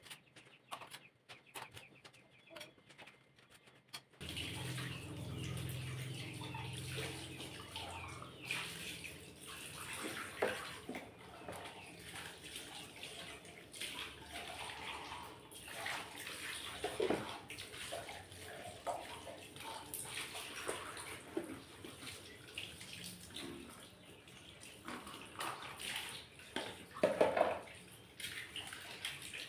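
Water running from a tap while things are washed, with scattered knocks and clatter of items being handled. It starts about four seconds in, after a few faint clicks.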